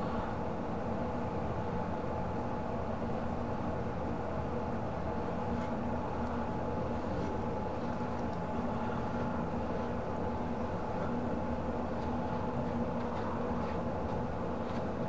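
A steady mechanical drone with a constant hum, unchanging throughout, with a few faint light clicks.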